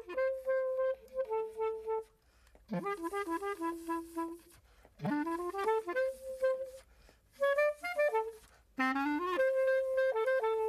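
A solo clarinet playing a melody in short phrases with brief pauses between them, mixing long held notes with quicker runs.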